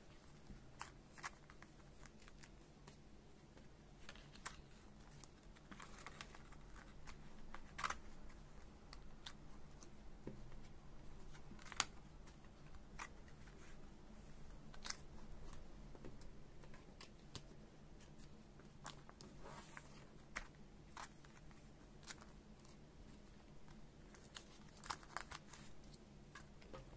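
Faint crinkling and rustling of thin clear plastic card sleeves as photocards are slid into them by hand, with scattered light clicks and taps as the cards are handled.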